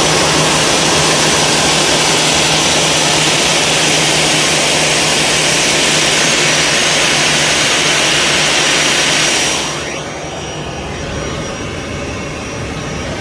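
Jet engine noise heard through an airliner window: a loud, steady rush with a faint high whistle, which drops off fairly suddenly about ten seconds in to a quieter hum.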